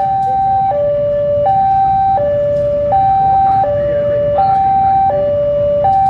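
Two-tone electronic warning alarm alternating evenly between a high and a low note, each held about three quarters of a second, over a low engine rumble.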